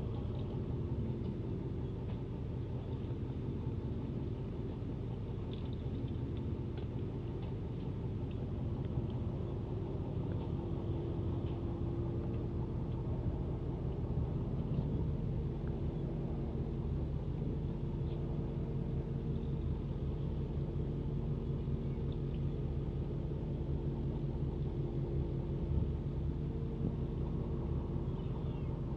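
Fishing boat's engine idling with a steady low rumble and hum.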